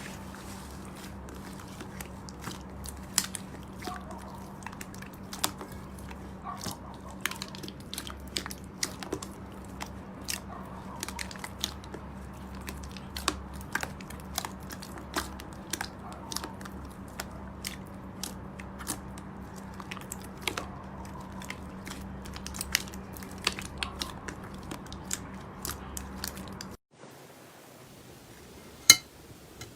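Slime being squeezed and pressed by hand, giving many sharp crackling clicks and pops over a steady low hum. About 27 seconds in, the sound cuts to a quieter clip with a couple of loud pops.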